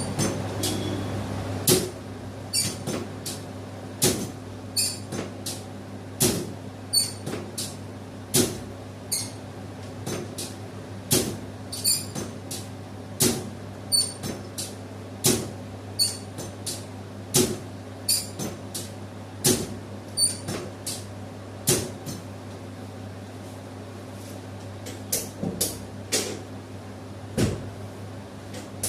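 A series of sharp knocks or clacks, a loud one about every two seconds with lighter ones between, over a steady electrical hum.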